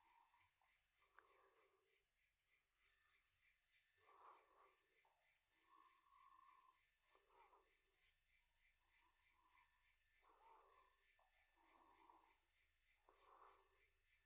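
Faint, steady chirping of a night insect, a high-pitched pulse about three times a second without a break, with scattered faint, irregular lower sounds underneath.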